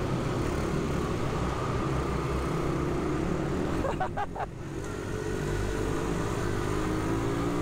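100 cc single-speed pit bike engine running under throttle. About four seconds in its note drops briefly, then climbs steadily as the bike accelerates again.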